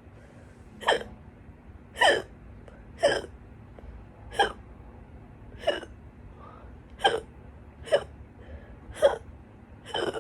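A person hiccuping loudly, nine sharp hiccups roughly a second apart, in a stubborn bout that keeps going.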